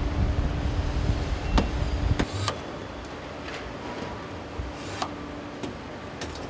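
Car assembly plant machinery: heavy low machine noise that drops away about two seconds in, leaving a steady hum and scattered sharp metallic clicks and knocks.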